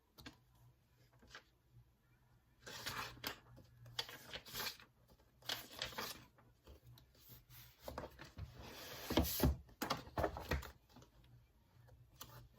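Paper rustling and crinkling in a run of short bursts, as sheets or pages are handled, loudest about two-thirds of the way through.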